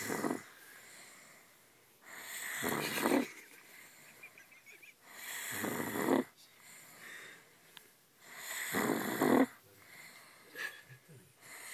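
A 130 kg 15-year-old snoring: three snores on the in-breath, about every three seconds, each swelling over about a second to a rasping peak, with quieter breathing between.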